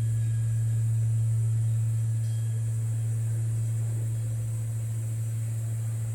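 Deep hum of a large Korean bronze temple bell (beomjong) dying away after a strike: one steady low tone, slowly fading.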